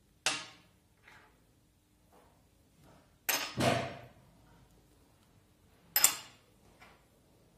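Small glass spice bowls clinking against the counter and the mixing bowl as ground spices are tipped in. There are three sharp clinks, the middle one doubled, with faint taps between.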